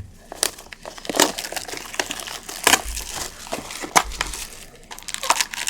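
Plastic and foil wrapping crinkling and crackling in irregular bursts as it is handled and torn open, unwrapping sealed trading-card boxes and packs.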